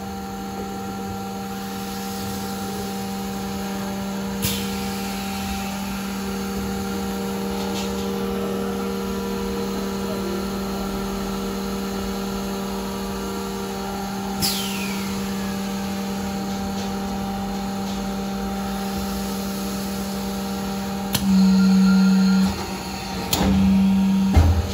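Rotary-table high-frequency plastic welding machine running with a steady electrical hum, with two sharp hisses of released air about 4 s and 14 s in. Near the end it gives two loud buzzes of about a second each, each starting with a click, as the welding generator fires.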